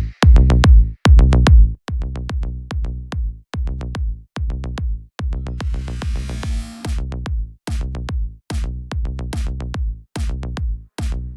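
Electronic dance music with a pulsing bass-heavy beat and a short rising sweep about six seconds in.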